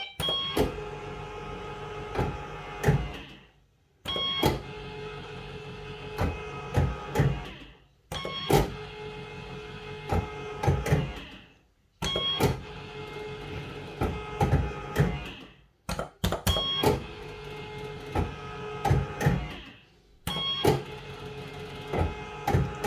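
Bellfruit Firecracker fruit machine spinning its reels again and again, about every four seconds. Each spin opens with a short beep, runs with a steady mechanical whirr and clicks, and ends with knocks as the reels stop.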